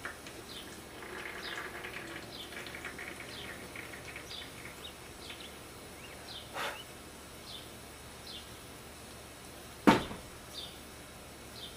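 Small birds chirping over and over, short falling calls. In the first few seconds there is a faint trickle of used oil draining from a four-stroke string trimmer's crankcase into a plastic drain jug. About ten seconds in comes one sharp knock, the loudest sound.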